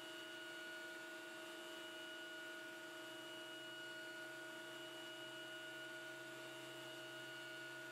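Faint steady hum made of several constant tones over a light hiss, unchanging throughout.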